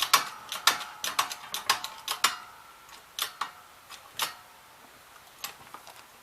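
Sharp metallic clicks and clanks with a brief ringing tone while a bent steel clamp-on fork is being straightened, about two a second at first, then a few scattered ones.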